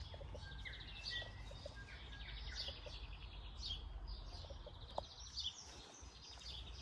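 Several small songbirds chirping and trilling, with many short high calls overlapping, over a steady low rumble.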